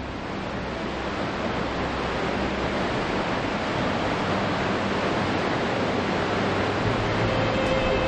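Vøringsfossen waterfall, a steady rush of falling water. A few faint held music tones come in near the end.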